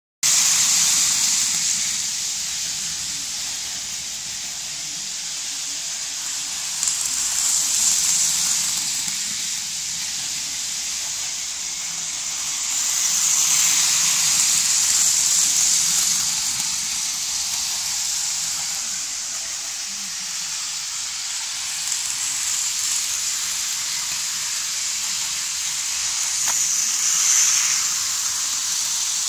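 Hornby OO scale model train running on sectional track, its small motor and wheels making a steady hissing whir that swells each time the train passes close by, several times over.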